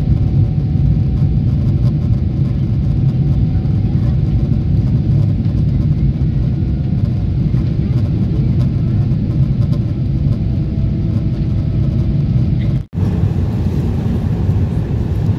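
Steady low rumble of a Boeing 777-300ER's engines and airflow as heard inside the passenger cabin in flight. About 13 seconds in it cuts out for a moment, then comes back slightly brighter.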